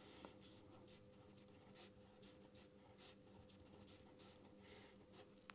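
Faint writing: short, irregular scratchy strokes of a pen, over a low steady hum.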